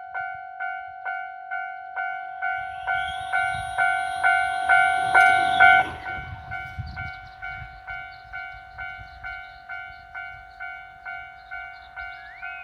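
Japanese railway level-crossing alarm ringing in a steady two-tone 'kan-kan', about three strikes a second. An electric train passes through the crossing from about two and a half seconds in; its rumble and whine are loudest around five to six seconds, then fall away.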